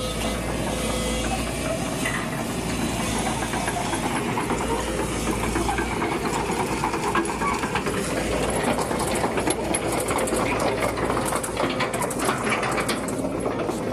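Excavator's diesel engine running steadily with a constant hiss, and a cluster of sharp clanks near the end.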